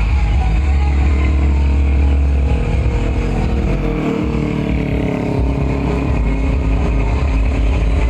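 Parade vehicles passing close by with their engines running, over a deep, steady bass rumble.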